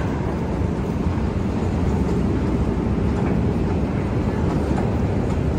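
Steady low rumble and hiss while riding a long escalator up a deep underground station shaft.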